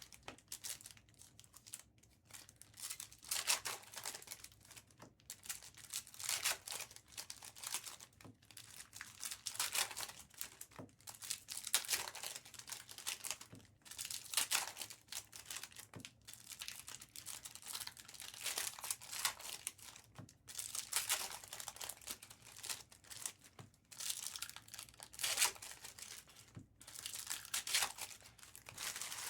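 Foil trading-card pack wrappers being torn open and crinkled, with cards handled, in irregular rustling bursts every second or two.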